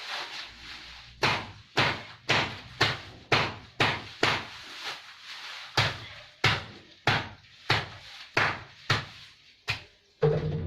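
Napier grass being chopped into short lengths, sharp chops at about two a second with a brief pause midway. A cow starts to moo near the end.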